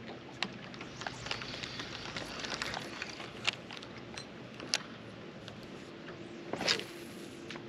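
Scattered light clicks and knocks, with a run of quick small ticks about one to three seconds in and a brief swish near the end, from a spinning rod and reel being handled in a small boat.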